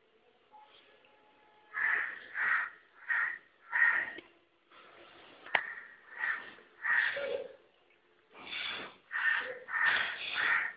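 White puppy making a quick series of about a dozen short, hissy breathy sounds, irregularly spaced, with a single sharp click about halfway through.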